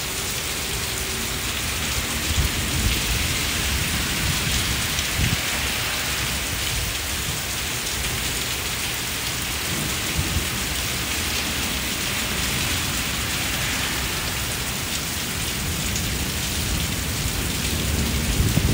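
Heavy rain falling steadily on a brick patio and potted plants, with low thunder rumbling in the background that grows louder near the end.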